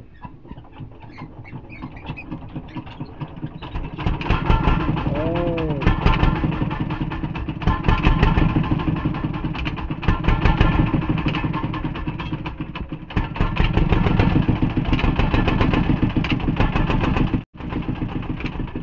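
Stationary single-cylinder "Peter" diesel engine driving a tubewell pump, hand-cranked and catching: the firing builds up over the first few seconds, then the engine runs loudly with a fast knocking beat.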